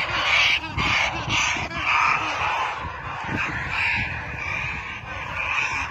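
Hail-injured parrots squawking in distress as they are handled: harsh, rasping calls repeated about twice a second at first, then weaker and more drawn out.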